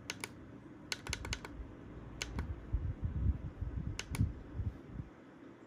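Plastic push-buttons on a battery-powered clip fan's control panel clicking, a dozen or so sharp clicks in small clusters, with low rubbing and bumping from the hand holding the fan's body.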